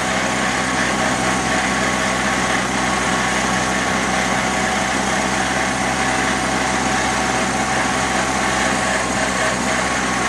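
Vintage Ford N-series tractor's four-cylinder flathead engine running steadily while the tractor drives along, heard close up from a camera mounted on the tractor.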